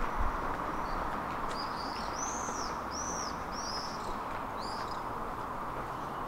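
A small bird chirping: a series of short, high, arched notes, most of them packed together in the middle, over a steady low background rumble.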